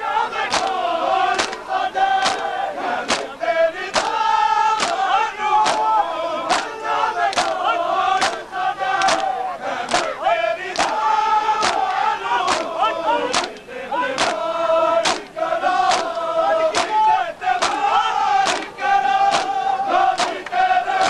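Large crowd of men beating their chests with open hands in unison during Shia matam, sharp slaps about three every two seconds, while they chant a mourning lament together in long, held lines.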